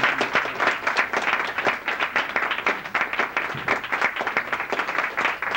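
A small group applauding: many overlapping hand claps, dense and steady.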